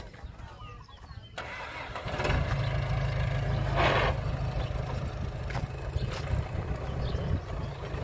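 A heavy machine's diesel engine starting up about a second and a half in, then running loudly and steadily, with a short hiss about four seconds in.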